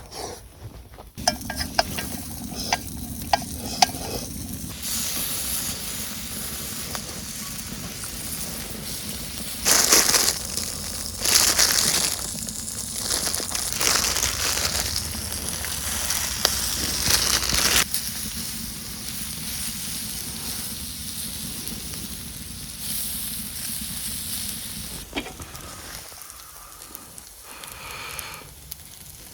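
Food sizzling and frying in a hot pan over a wood stove, a steady hiss that swells louder for long stretches in the middle. There are a few sharp taps about two to four seconds in.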